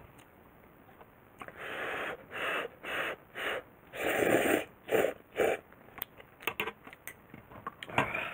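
Ramen noodles being slurped: a run of short slurps starting about one and a half seconds in, the longest around the middle, then a few light clicks near the end.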